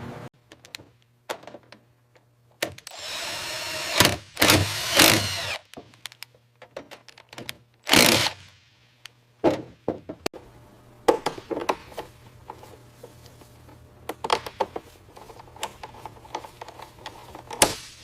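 Mechanics' tool work: a power tool runs briefly about three seconds in, with loud metal knocks around it. Later come many scattered clicks and taps of hand tools.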